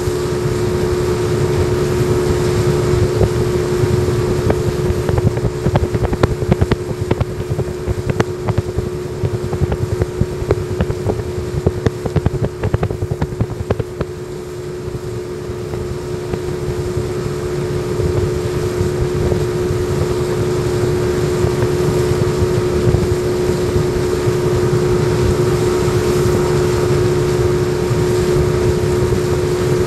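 Yamaha 40 hp two-stroke outboard motor running steadily under way, a constant engine note over a low rumble. It goes briefly quieter about halfway through, then comes back.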